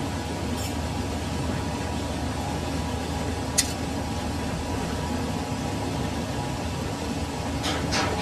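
Steady machine hum in a lathe workshop, with one sharp click about three and a half seconds in and a few more clicks near the end.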